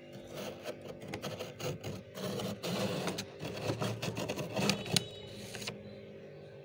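Metal spoon scraping and digging into dry, powdery freezer frost: a dense gritty crunching with sharp crackles, loudest just before it stops about five and a half seconds in. A steady low hum runs underneath.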